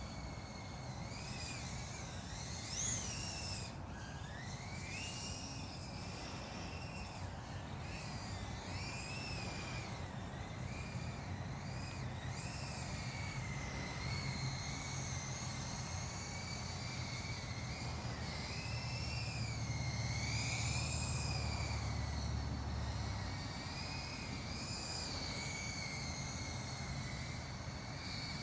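FPV quadcopter's motors whining, the pitch rising and falling constantly with throttle changes as it flies, with a sharp rise about three seconds in. A low rumble sits underneath and is strongest for a few seconds in the second half.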